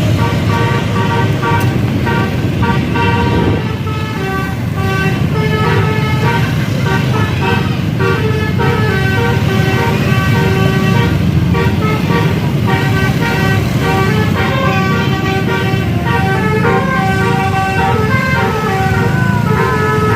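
Bus 'telolet' horn playing a quick melody of changing notes without a break, over the bus's engine running underneath.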